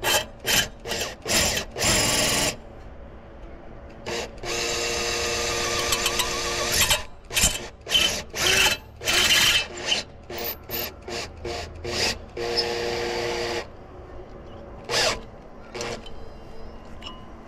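Makita power drill driving screws to fix roof ridge tiles. The motor runs in many short trigger bursts, with a few longer steady runs of a second or two.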